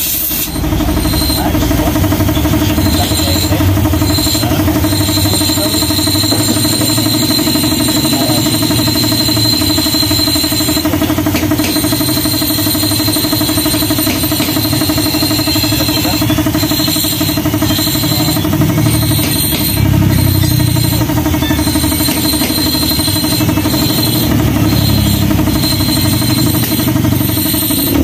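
A motor running steadily: a low rumble under a constant pitched drone, with a few light clicks about eleven seconds in.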